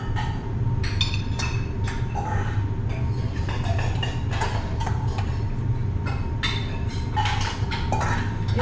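A metal spoon clinking and scraping against a stainless steel bowl as food is spooned out of it, in scattered light clicks, over a steady low hum.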